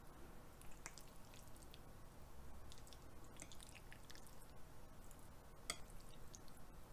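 Faint wet squishing and light scattered clicks of metal chopsticks stirring raw beef tartare mixed with egg yolk, with one sharper click near the end.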